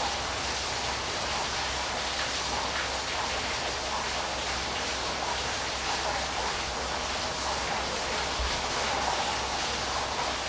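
Steady rushing of a waterfall: an even wash of falling water that does not let up.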